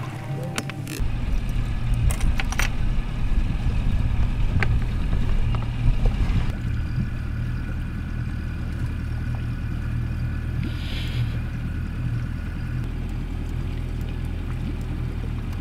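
A small fishing boat's motor running with the boat under way, a steady low rumble with water noise. The motor picks up about a second in and settles to an even run after about six and a half seconds.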